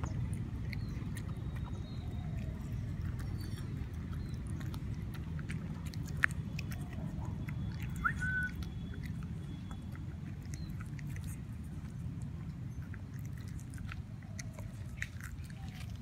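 A puppy eating boiled rice and chicken from a stainless steel bowl: wet chewing and small scattered clicks of mouth and food against the bowl, over a steady low background rumble. A short high chirp sounds once, about eight seconds in.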